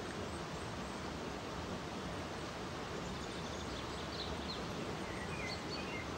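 Mountain stream running over rocks, a steady rushing hiss, with a few faint bird chirps in the second half.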